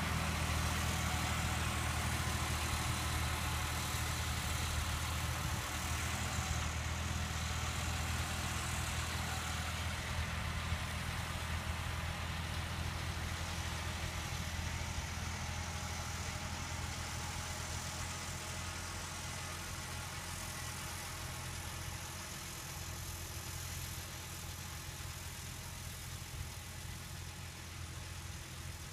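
New Holland TT55 tractor's diesel engine running steadily at working revs while it pulls a fertilizer spreader, growing gradually fainter as it drives away.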